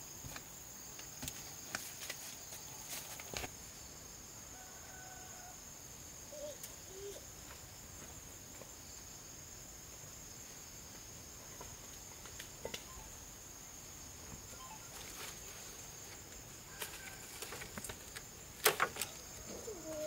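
Faint rural ambience: a steady high-pitched insect drone, a few faint bird chirps and scattered light clicks and taps, with one sharp click near the end.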